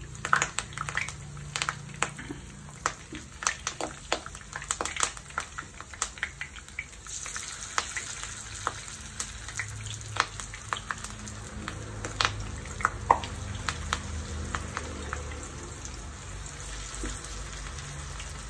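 Marinated chicken pieces deep-frying in hot oil as they are slipped into the pot: dense crackling and popping. About seven seconds in it thickens into a steadier hissing sizzle as the oil fills with chicken.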